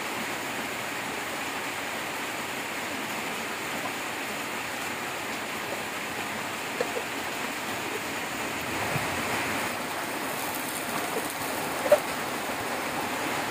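Bánh xèo batter sizzling steadily as it fries in a wok over a wood fire, with a few short clicks, the sharpest near the end.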